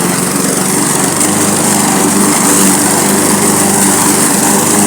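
Walk-behind petrol lawn mower engine running steadily under load, cutting grass, with the blade and deck adding a loud, even hiss.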